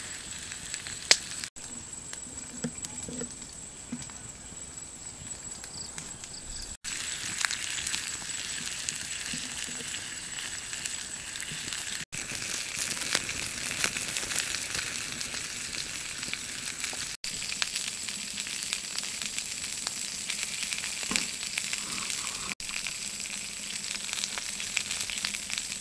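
Pork ribs sizzling on a hot stone over an open wood fire: a steady high hiss with a few sharp pops. The sound drops out for an instant about every five seconds.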